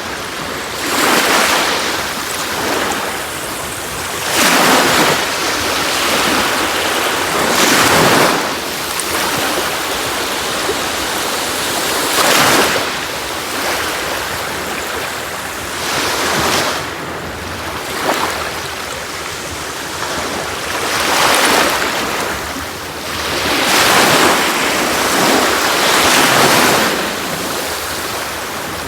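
Sea waves breaking and washing up a shore: a surge of surf every three to five seconds over a steady wash of water.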